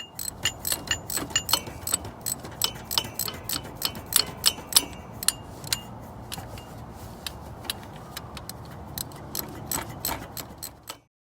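Metal tools and parts clinking and clicking, irregular sharp ticks several a second with a metallic ring, over a low steady rumble.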